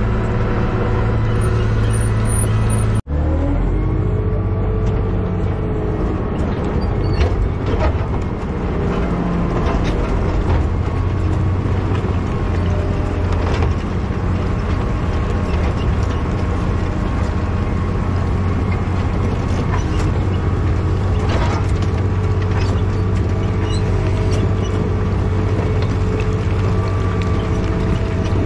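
Motor grader's diesel engine running steadily, with a brief break in the sound about three seconds in.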